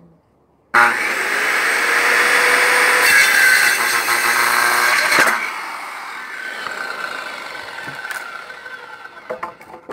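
Bosch circular saw starting suddenly about a second in and cutting through a round wooden pole for about four seconds, then winding down and fading once released. A few short knocks near the end.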